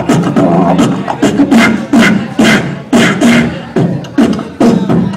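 Live beatboxing through a handheld microphone: a steady beat of sharp snare-like hits, about two a second, over low hummed bass tones.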